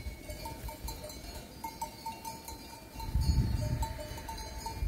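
Bells worn by a grazing flock of sheep clinking irregularly, many short rings overlapping. A brief low rumble comes about three seconds in.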